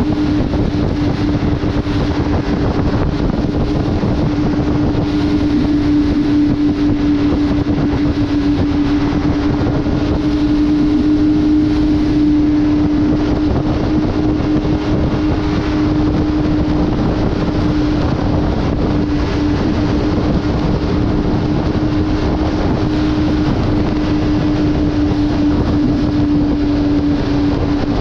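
Ski-Doo Renegade Adrenaline snowmobile engine running at a steady, unchanging pitch, with wind noise and track and snow rush under it.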